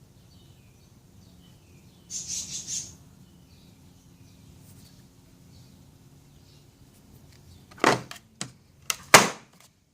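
Handling sounds of a steel impact socket: a brief rustle about two seconds in, then four sharp clicks and knocks near the end as the socket is handled and set down. Faint bird chirps can be heard in the background.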